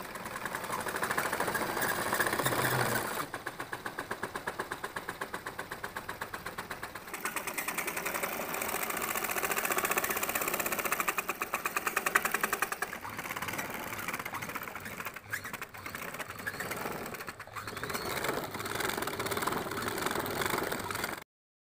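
Small electric motor spinning the beater drum of a cardboard model wheat thresher, running with a fast, even rattle. The loudness steps up and down a few times, and the sound cuts off suddenly near the end.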